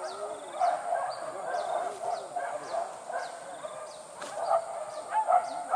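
Distant pack of hunting dogs barking and baying on a boar hunt, mixed with far-off shouting, over a steady high insect buzz and scattered bird chirps.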